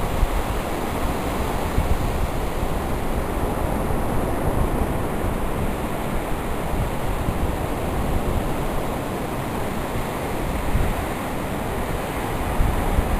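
Steady noise of surf and wind, with wind buffeting the microphone in a low, uneven rumble.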